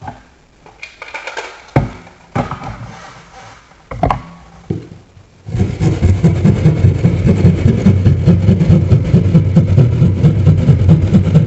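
Hand jab saw cutting through sheetrock in quick, steady back-and-forth strokes, starting about halfway through, after a few scattered knocks and taps. The wall cavity behind is hollow, with no insulation.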